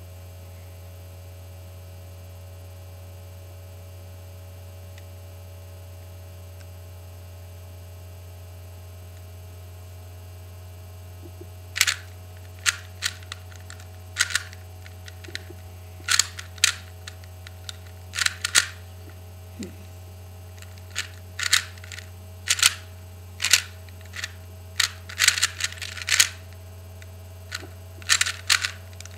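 Steady electrical hum. From about twelve seconds in, a 3x3 Rubik's cube is being turned fast in a speedsolve, its plastic layers clicking sharply, singly and in quick clusters.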